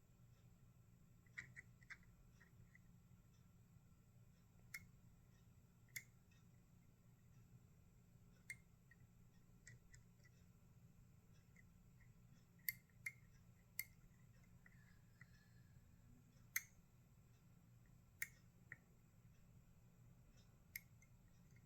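Sharp metallic clicks of a disk detainer pick turning the discs inside a Parkside disk detainer lock, about a dozen at irregular intervals over a faint low hum.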